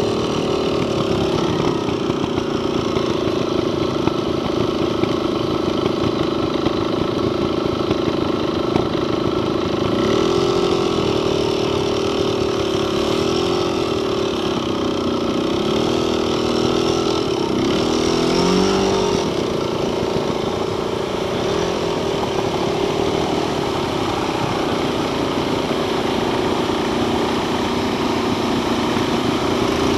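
Off-road vehicle engine running at low speed on a slow trail ride. Its note rises and falls with the throttle for a stretch in the middle, then settles back to an even running sound.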